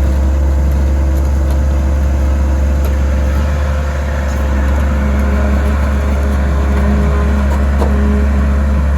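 Caterpillar 345BL excavator's diesel engine running steadily with a deep, loud drone. About four seconds in, the sound dips briefly and a new steady whine joins it.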